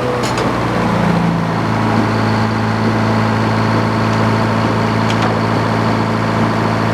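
Sawmill engine running at a steady speed, its pitch settling slightly higher right at the start.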